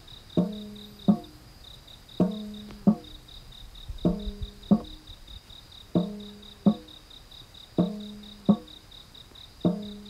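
A slow repeating musical figure of struck, ringing notes in pairs about 0.7 s apart, each pair coming back roughly every two seconds, over the steady high chirping of a cricket.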